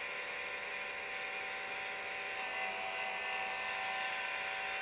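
Antenna rotator motor running steadily as it turns the antenna toward a 63-degree target, a constant even-pitched motor whine.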